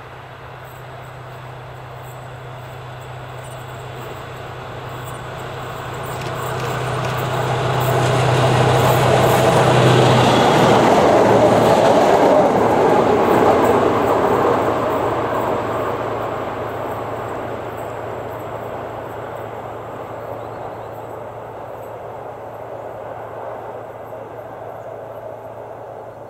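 SU42 diesel locomotive hauling a passenger train approaches with a steady engine drone, passes close by about ten seconds in with loud wheel and rail noise, then fades slowly as it goes away.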